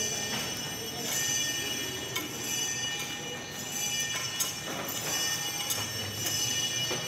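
Church bells ringing, struck again and again at an uneven pace, their high tones sounding on between strikes.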